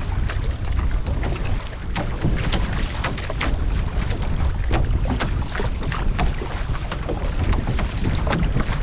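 Water splashing and sloshing around a paddled outrigger canoe, with frequent sharp splashes from the paddles and hull, over a steady rumble of wind on the microphone.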